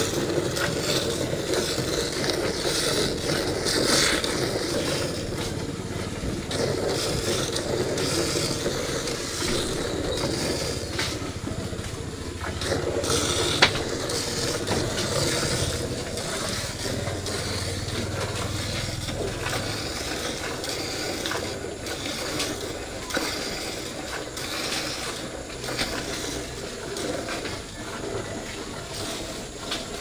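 Hand milking: rhythmic squirts of milk from a cow's teats hissing into the froth of a partly filled aluminium pail. A single sharp click sounds about halfway through.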